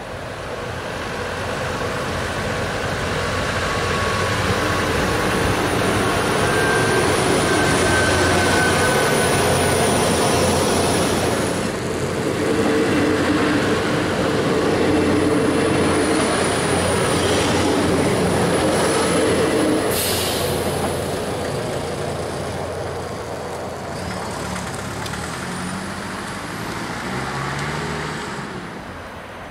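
Two-car diesel multiple unit running past at speed, its engine and wheels on the rails rumbling loudest in the middle and fading away. Near the end a van's engine pulls away over the crossing.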